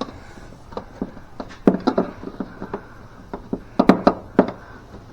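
Irregular sharp knocks and taps, in two quick clusters about two seconds in and about four seconds in, as the shifter cable is worked through the hole in the car's floor.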